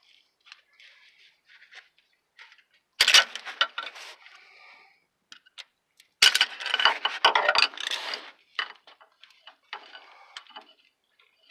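Metal parts and hand tools clinking and rattling as they are handled, in two louder bursts about three seconds in and from about six to eight seconds, with scattered small clicks in between.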